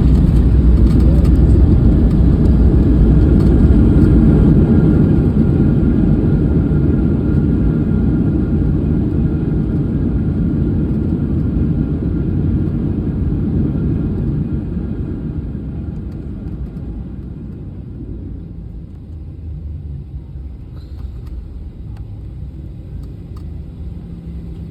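Cabin noise of a Boeing 737 on its landing roll: a loud, steady low rumble of engines and runway that dies away about 15 seconds in as the jet slows, leaving a quieter steady hum.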